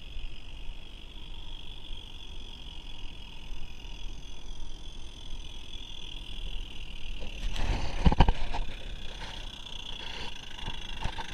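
Regner 'Vincent' live-steam garden-railway locomotive running on its track: a steady high-pitched hiss, with a burst of clicking and knocking about three-quarters of the way through, the loudest part, then lighter clicks.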